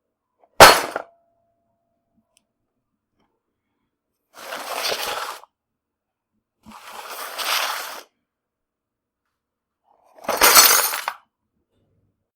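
A toolbox falling, heard as four separate crashes. The first is a sharp hit followed by a lingering ring. The next three are longer clattering crashes of about a second each, a few seconds apart.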